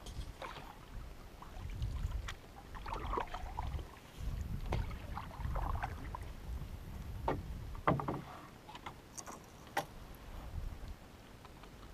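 Canoe paddling: paddle strokes through calm water with dripping, and light knocks against the aluminum hull. The strokes stop about eight seconds in, and a few sharp knocks and clicks follow.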